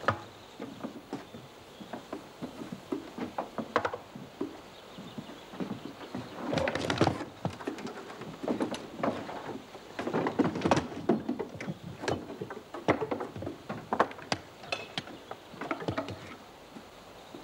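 Wooden boxes being handled: a run of irregular knocks, clunks and scrapes of wood on wood as a box is lifted and a wooden chest is opened and worked in. The clatter thickens into two busier stretches, about a third of the way in and again just past the middle.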